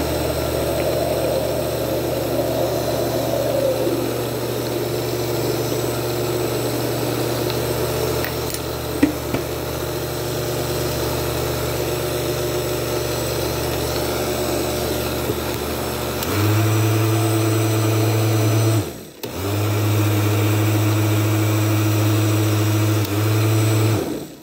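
Blender motor running steadily while blending a smoothie. About two-thirds of the way through it switches to a louder, steadier speed, cuts out for a moment, runs again, and stops just before the end.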